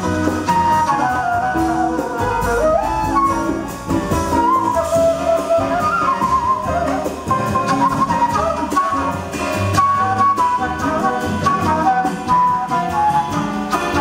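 Silver concert flute playing a jazz solo line of quickly changing notes, live over a band of piano, double bass and drums.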